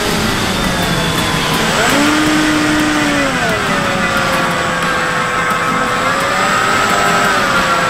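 Bixler 3 RC plane's electric motor and pusher propeller running in flight as heard from an onboard camera, a steady whine whose pitch rises and falls several times with the throttle. Wind rushes over the microphone throughout.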